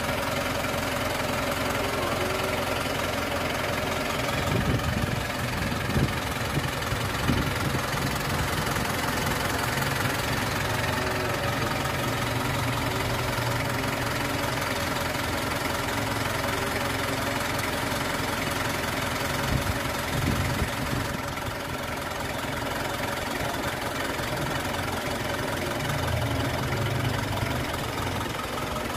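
Mitsubishi Pajero Sport's DI-D diesel engine idling steadily while it runs on injector cleaner from a purging canister during a fuel-system purge. A few louder knocks come between about four and eight seconds in.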